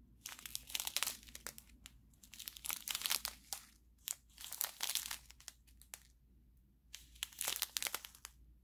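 Small clear plastic zip-lock bags of diamond-painting drills crinkling as they are handled and flipped through, with a brief lull about six seconds in.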